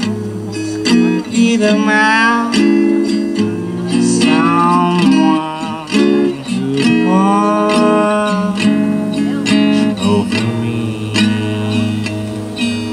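A live solo act: acoustic guitar strummed in steady chords while the player sings a melody over it.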